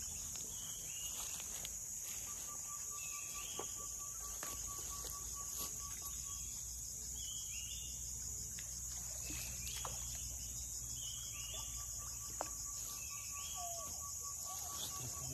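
Steady high-pitched insect chorus. Short chirping calls repeat over it about once a second, and a thin, even trill sounds twice, for a few seconds each time.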